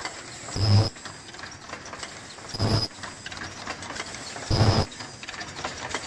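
Automatic face mask production line machinery running with a steady mechanical clatter, and a louder cycle repeating about every two seconds.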